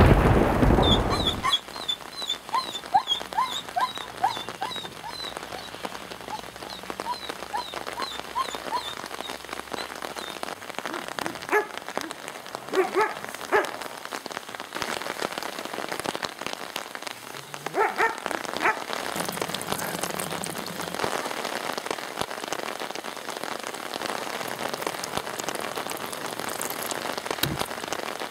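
Steady rain falling, after a loud rumble of thunder dies away in the first second or two. A dog barks a few times midway.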